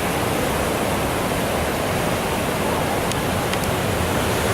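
Steady rushing noise of ocean surf, with wind on the microphone.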